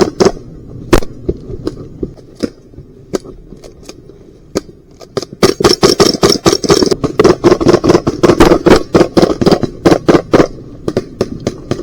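Airsoft guns firing in close quarters: scattered single shots, then from about five seconds in a fast stream of shots lasting about five seconds, with a few more shots near the end.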